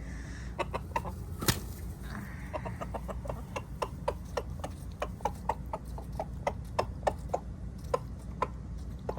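Chickens clucking: a steady run of short, separate clucks, about two or three a second, over a low steady rumble.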